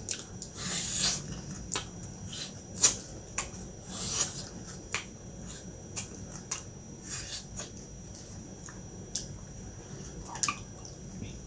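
Close-up mouth sounds of eating a soft cheesecake: wet chewing and sharp lip smacks in irregular clicks, with a brief rustle of its paper wrapper about a second in and again about four seconds in.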